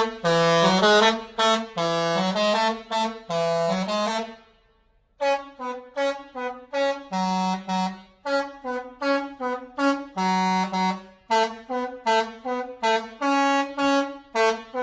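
Bus 'telolet' musical air horn playing a tune in separate honked notes. A phrase of longer notes comes first, then a break of about a second, then a faster run of short notes.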